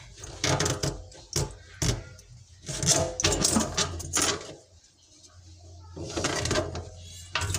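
Spring-coil drain snake being worked in and out of a clogged sink drain: irregular bursts of scraping and rattling, with short pauses between them.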